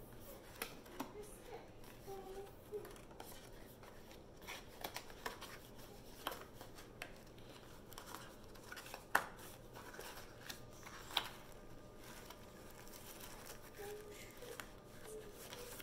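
Small cardboard box and its packaging being handled and opened: scattered light clicks and rustles as the lid and insert are worked, with a sharper click about nine seconds in and another about eleven seconds in.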